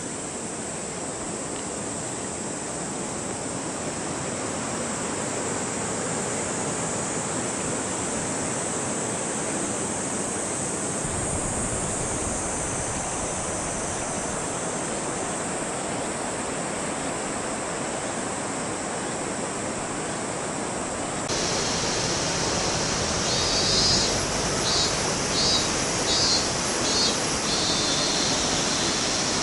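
Steady rushing outdoor noise, with no single sound standing out. About two-thirds of the way through it changes abruptly to a louder rush, over which short, high chirping calls repeat about once or twice a second.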